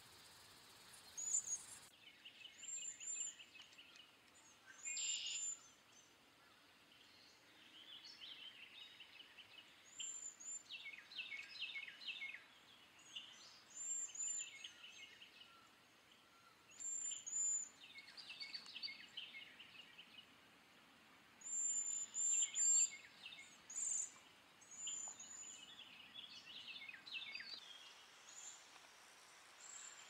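Cedar waxwings calling: short, thin, very high-pitched whistled notes, given in little groups of two to four again and again, with lower chattering bird chirps between them.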